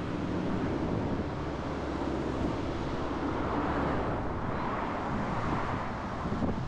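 Steady road noise from a car driving along a street: tyre rumble and engine hum with wind buffeting the microphone, swelling a little around the middle.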